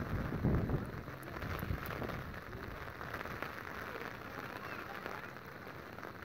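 Steady rain falling on a wet, flooded street and its puddles, with a few louder low rumbles in the first two seconds.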